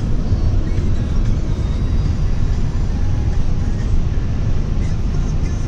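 Steady low rumble of tyre, road and engine noise heard inside a vehicle's cabin while it cruises at motorway speed.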